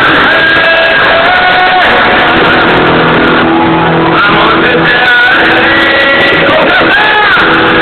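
Live rock band playing loud: a singer's held, gliding notes over electric guitar and keyboard, with the crowd shouting underneath.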